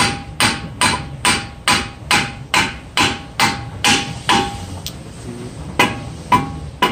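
Hammer blows on the end of a Kia Forte's front CV axle shaft in the wheel hub, knocking the splined shaft loose from the hub. Steady strikes about two a second, each with a short metallic ring; they pause a little after halfway, then three more blows come near the end.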